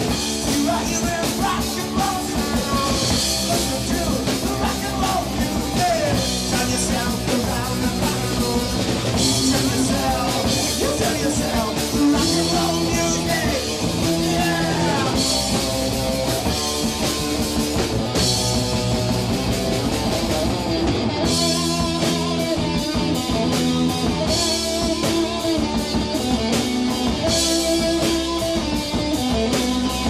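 Rock band playing live: electric guitars sustaining chords with a few sliding notes, over a drum kit with crashing cymbals.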